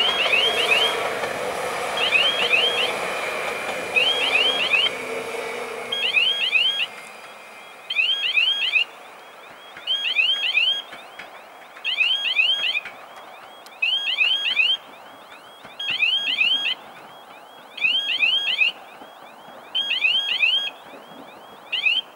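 Level-crossing electronic warning signal sounding in short bursts about every two seconds, each burst a few quick rising chirps. For the first several seconds a passing electric train runs underneath it and fades away.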